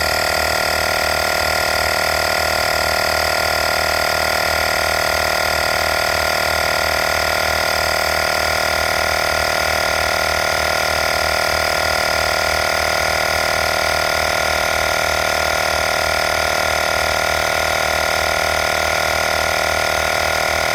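FYLINA cordless air compressor running steadily: its small motor and piston pump give a constant whine over a fast, even low pulse.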